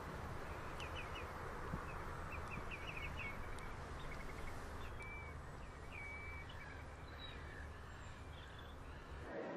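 Outdoor ambience: a steady background rush with small birds chirping in quick runs of short notes, then two longer whistled notes midway. The background changes abruptly near the end.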